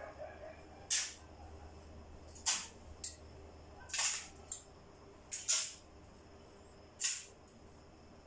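Metal spoon scraping a small plate as spoonfuls of shredded coconut and raisins are dropped into foil cups: a short scrape about every one and a half seconds, five in all, over a faint steady hum.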